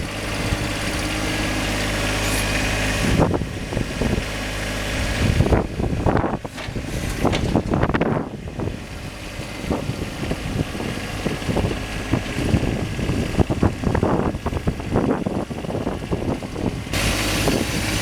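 John Deere 1025R compact tractor's three-cylinder diesel running steadily. From about three seconds in until near the end, the steady engine tone is broken up by irregular knocks and scrapes.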